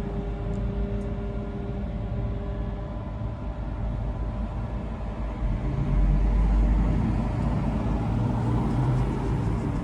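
Motor vehicle running with road noise, a steady engine hum that grows louder and heavier in the low end about six seconds in.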